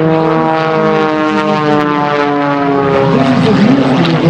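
MXS-RH aerobatic monoplane's piston engine and propeller running hard in flight, one steady note whose pitch falls slowly.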